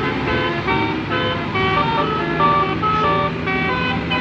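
Musical telolet horn of a Jetbus 5 coach playing a quick tune of short notes at changing pitches, over a steady low hum.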